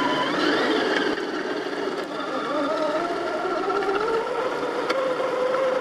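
Brushed 540 electric motor and gear train of a 1/10-scale RC crawler whining under throttle, the pitch climbing slowly as it speeds up.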